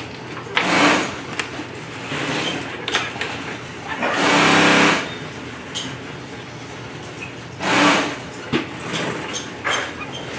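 Industrial sewing machine stitching in three short bursts, the longest about a second, with small clicks of fabric being handled between them.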